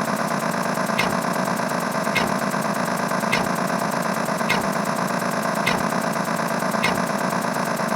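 A steady mechanical hum, engine-like, with a short high chirp repeating about once a second.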